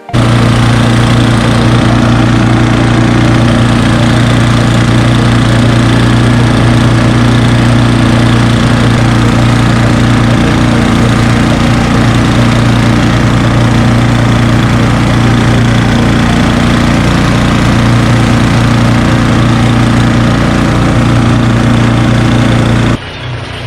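Troy-Bilt Storm snow blower's engine running steadily and loudly, close by. It cuts off suddenly near the end.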